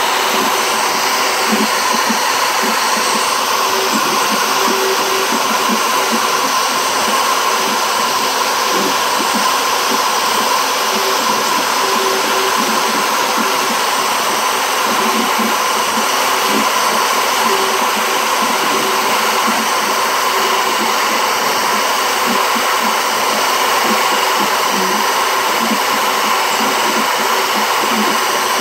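CNC router spindle running steadily at high speed with a held whine while its bit engraves letters into a wooden board.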